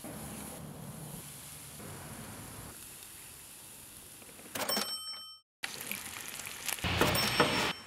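Food sizzling on a hot gas grill grate, with a short bright metallic ring about four and a half seconds in, then bacon frying in a pan, sizzling and crackling louder near the end.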